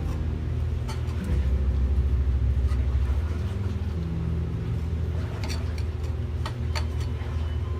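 Background music with a deep bass line, and a few sharp taps about two-thirds of the way through.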